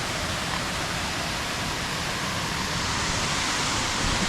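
Waterfall rushing: a steady, even roar of falling water cascading down the rock steps of Rutledge Falls.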